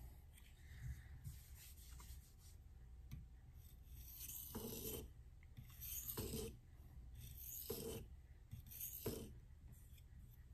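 Knife blade of CruWear steel being stroked across a resin-bonded diamond waterstone: four faint rasping strokes about a second and a half apart, over a low steady background hum.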